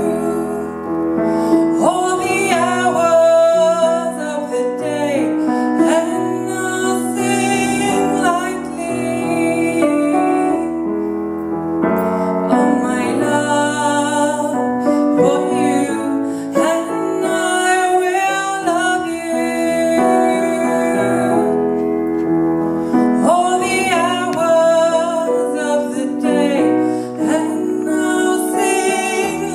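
Music: piano or keyboard playing with a woman singing.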